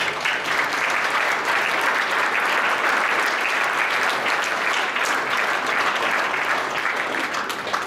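Audience applauding, a dense even clapping that swells at once and tapers off near the end.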